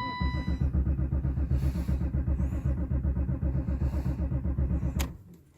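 1990 BMW 735iL's straight-six being turned over by the starter for about five seconds, an even rhythmic chugging that stops without the engine catching. A short dashboard chime sounds just before it.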